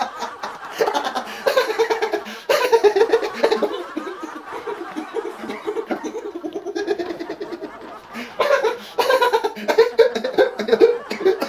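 A man laughing in a string of exaggerated, acted styles, one after another with short lulls between them: a talking laugh, a camp laugh, then a drunken laugh.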